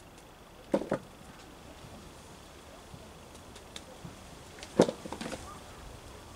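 Hands digging through loose potting compost in a plastic tub to lift out potatoes, with sharp knocks: two close together about a second in, and a louder cluster near five seconds.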